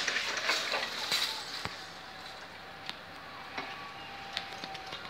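Level crossing barrier booms moving, with a sudden rush of hissing noise in the first second and then a few sharp clicks and clinks over a faint steady whine.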